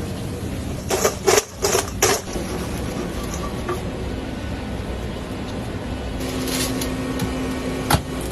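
Steady mechanical running noise with a quick run of four clattering knocks about a second in, a low steady hum joining over the last couple of seconds, and a single sharp click near the end.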